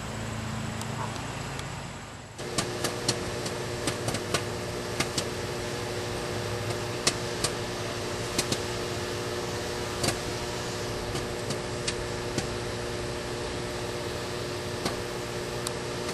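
Household 700-watt microwave oven running with a steady hum while a bag of microwave popcorn pops inside in sharp, irregular pops, a couple of dozen in all. The hum steps up about two seconds in.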